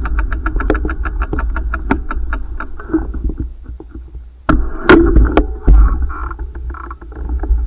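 Bicycle freewheel ticking rapidly while coasting, the clicks slowing and fading as the bike slows, over a low rumble. A few seconds in come several loud knocks and clatter.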